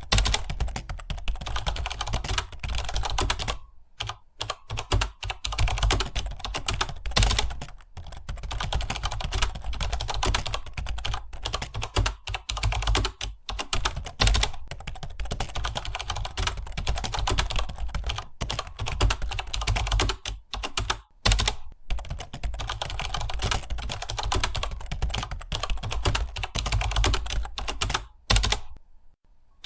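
Fast, continuous typing on a computer keyboard, as in a typing speed test, with a few brief pauses.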